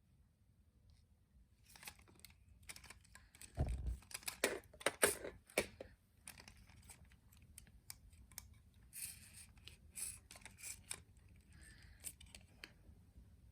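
Toy packaging being handled and opened: scattered clicks, rustling and tearing, with a dull thump about three and a half seconds in.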